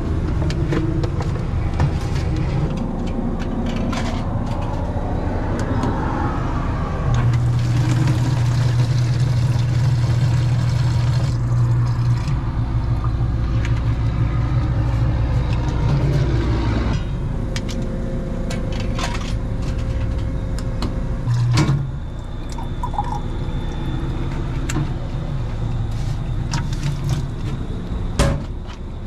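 A Jeep driving: a steady engine drone and road noise that grows louder for several seconds about a quarter of the way in. There are a couple of sharp knocks in the last third.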